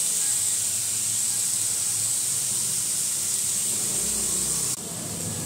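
Diced pointed gourd and potato sizzling in ghee in a non-stick frying pan: a steady frying hiss that drops a little near the end.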